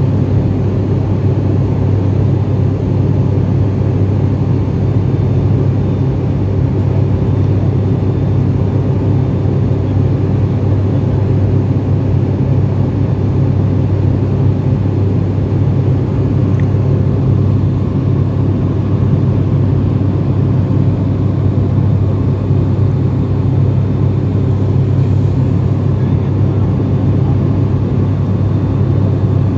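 Turboprop airliner's engine and propeller in cruise, heard inside the cabin: a steady, loud low drone with a constant hum.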